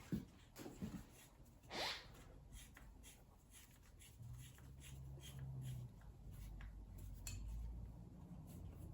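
Faint clicks, knocks and a brief scrape of a hex key working a 4 mm bolt on a bicycle frame, with a low hum for a few seconds past the middle.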